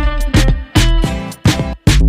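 Background music with a strong, steady beat and a heavy bass.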